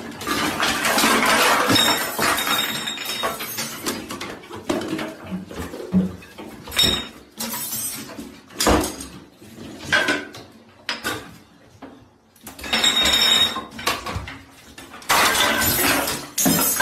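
Clattering and crashing of bottles and small objects knocked off a bathroom sink and counter, with clinks and knocks over and over as cats scramble through.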